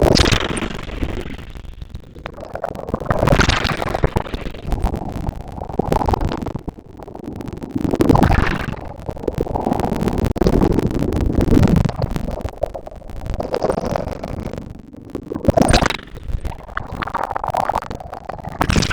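Sea waves breaking and washing up the beach, the rush swelling and fading every two to four seconds, with a heavy low rumble of wind buffeting the microphone.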